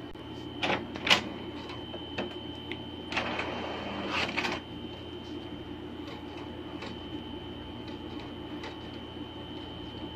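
HP Deskjet 2300 inkjet printer running a test print with freshly refilled cartridges: two sharp clicks about a second in, a louder stretch of mechanism noise from about three to four and a half seconds in, then quieter steady running with faint ticks over a low hum.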